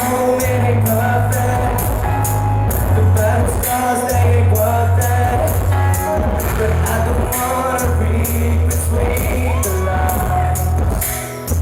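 Live pop band playing loudly through a concert PA, with a steady drum beat, heavy bass and melodic lines. Recorded close to the speakers, so the sound is distorted and crackling.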